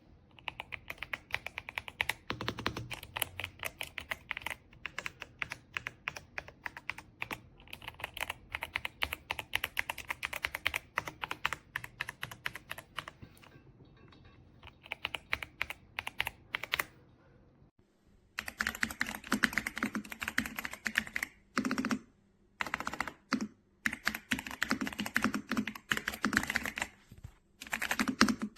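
Typing on a YUNZII B75 PRO gasket-mount mechanical keyboard: a fast, continuous run of keystrokes. About seventeen seconds in it stops for a second, then resumes with a deeper, fuller sound and a few short breaks.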